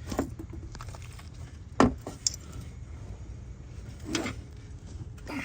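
Small clicks and knocks of hands working a plastic high-voltage harness connector on an electric A/C compressor, with one sharp click about two seconds in and a softer knock near the end, over a low hum.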